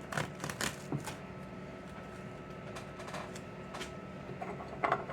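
Scattered light clicks and taps of a spoon against a bowl as kitchen dishes are handled, over a faint steady hum.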